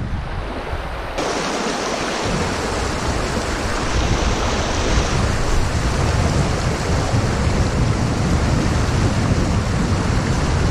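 Steady rushing of river water over rocks, a continuous loud noise.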